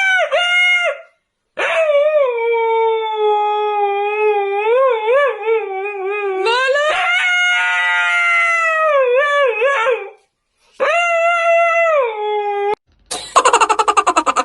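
Dog howling in long, wavering notes: a short howl, a long one whose pitch jumps up partway through, then a shorter one, with brief breaks between. Near the end a rapid pulsing, buzzy sound cuts in.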